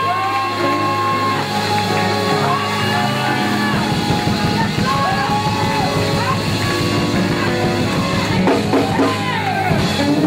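Live gospel church music: sustained keyboard chords and a drum kit, with voices singing and shouting over it and the drums coming in harder a few seconds in.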